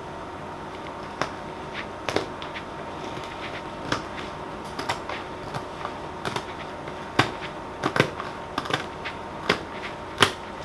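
Scattered light clicks and taps, irregularly spaced, as the stiff paper-backed diamond painting canvas is handled and shifted on the work surface.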